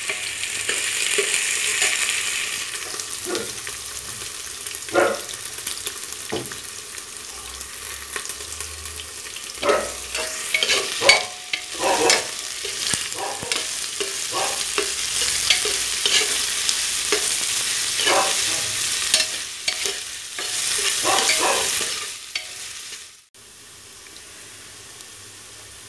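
Sliced onions sizzling in hot oil in an aluminium pressure cooker as they are fried toward brown. A metal spoon stirs them, scraping and clicking against the pot now and then. Near the end the sizzle drops suddenly to a quieter hiss.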